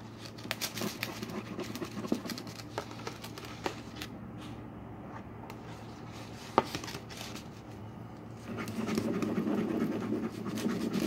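A metal spoon scraping and clicking against a tray as slime is stirred: scattered clicks and scrapes at first, one sharp click past the middle, then a denser run of steady stirring and scraping for the last few seconds.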